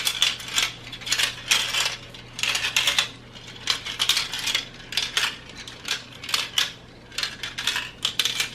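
Mini marbles clattering against plastic marble-run pieces and each other, in irregular bursts of quick clicks.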